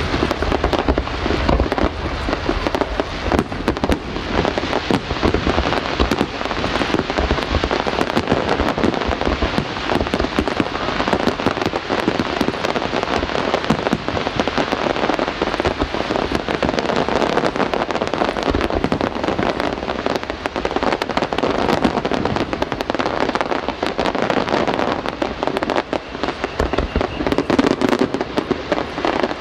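Fireworks display: many rapid pops and crackles overlapping without a break.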